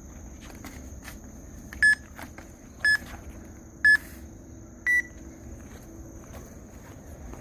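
Interval timer countdown beeps: three short beeps a second apart, then a fourth beep that is higher and slightly longer, marking the end of a rest period and the start of the next exercise.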